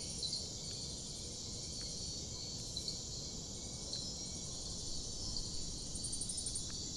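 Cricket chirping in repeated short high-pitched trills over a steady low hiss, with a few faint light ticks.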